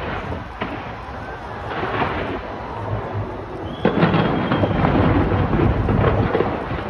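Aerial fireworks bursting in quick succession: a rolling rumble of booms and sharp cracks that grows louder and denser after a sharp burst about four seconds in.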